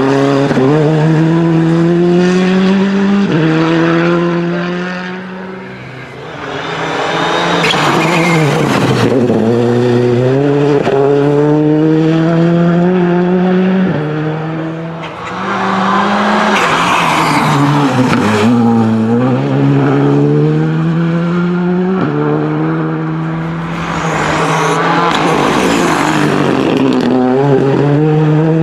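Rally cars, including a Hyundai i20 and a Ford Fiesta, accelerating hard past one after another. Each engine climbs in pitch through the gears and drops back at each upshift, and the sound fades briefly between cars.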